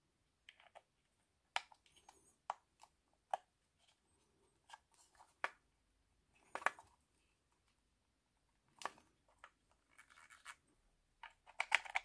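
Faint handling noises of small plastic parts: irregular clicks and scrapes as a 3D-printed knob is worked onto the radio's rotary encoder shaft, with a quick run of clicks near the end.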